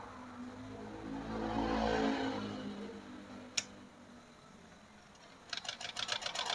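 Butterfly sewing machine starting to stitch about a second before the end, a fast even clatter of needle strokes: a test seam after a repair for skipped stitches. Before it, a passing engine rises and fades, and there is one sharp click a little past halfway.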